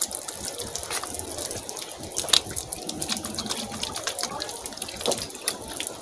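Water running from an outdoor standpipe tap and splashing onto the ground as hands are rinsed under the stream, with irregular small splashes.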